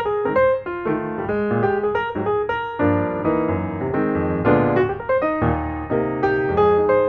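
Piano music: a quick, flowing run of notes and chords.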